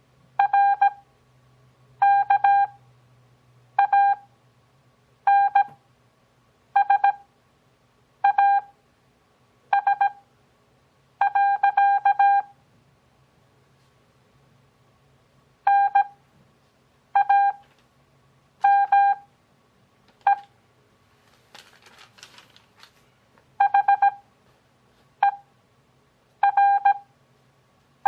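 Morse code (CW) sent as a steady beeping audio tone. Each character is a quick group of dits and dahs at 17 WPM character speed, separated by long Farnsworth gaps that bring the overall pace to about 6 WPM, roughly one character every second and a half.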